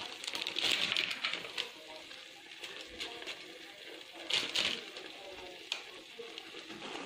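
Plastic bag crinkling as dried noodles are tipped into a pot of simmering broth, with a short louder crinkle about four seconds in and a few light clicks, over the faint bubbling of the broth.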